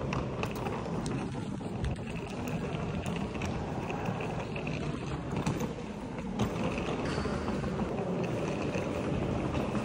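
Steady low rumble of a moving vehicle from inside, with faint scattered clicks and rattles.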